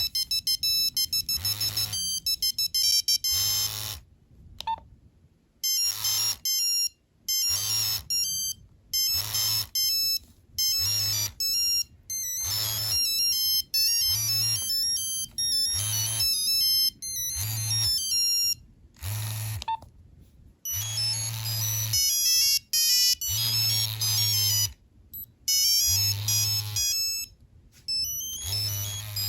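Nokia 3390 playing its monophonic beeping ringtones through its small built-in speaker: short stepped melodic phrases repeated with brief pauses, with a low buzz under each phrase.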